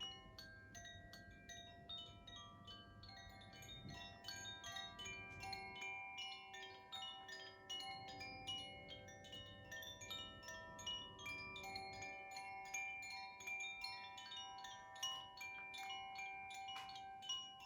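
Koshi chime, a bamboo wind chime with tuned metal rods inside, being swayed and played: a continuous, rapid tinkling of many strikes whose clear tones ring on and overlap.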